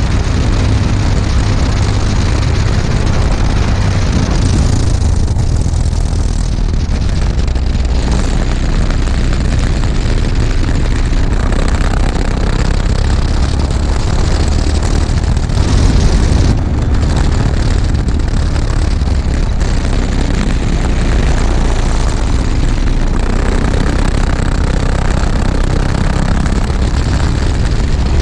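Racing kart engine running hard at speed, heard close up and loud from a camera mounted on the kart. The note changes briefly a few times along the lap.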